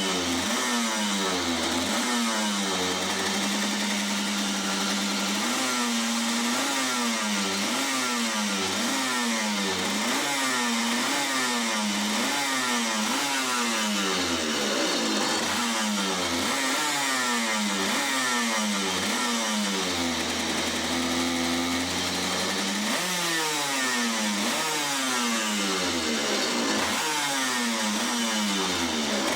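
Comer reed-valve 100 cc two-stroke kart engine being revved up and down over and over, its pitch climbing and dropping about once a second, held at a steady pitch for a moment about four seconds in and again for a couple of seconds about twenty seconds in.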